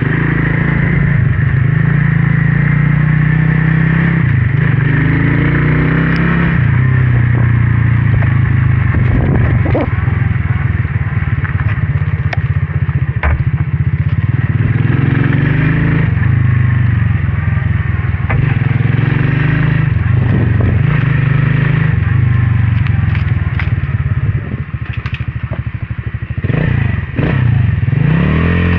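Motorcycle engine running under way, its pitch stepping up and down every few seconds with throttle and gear changes, with rising and falling revs near the end.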